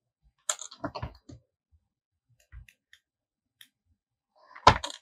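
Small clicks and handling noises of yarn and crochet tools being worked by hand: a quick cluster of clicks about half a second in, a few faint ticks, and a single louder knock near the end.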